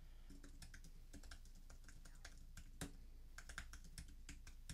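Faint typing on a computer keyboard: irregular key clicks, several a second, with a few louder keystrokes.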